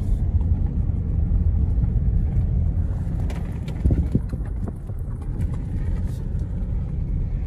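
Road noise inside a slow-moving car: a steady low rumble of tyres on a gravel road, with a few faint ticks about halfway through.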